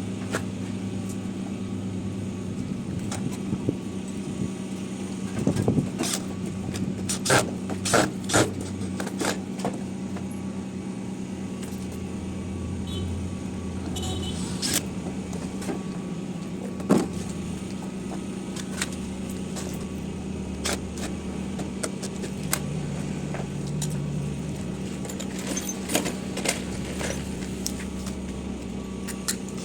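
A steady mechanical hum, with scattered sharp knocks and clanks: a cluster about a third of the way in and one loud knock near the middle.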